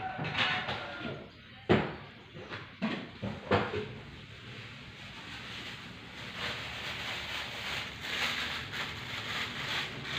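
Several sharp clanks of cookware, from the pot, its lid or a utensil, in the first few seconds, then a steady hiss of the pot cooking.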